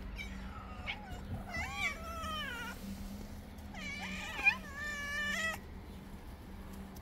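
Hungry stray cats meowing for food: a faint short call, then two long, drawn-out meows that bend up and down in pitch, the second starting about four seconds in and the louder of the two.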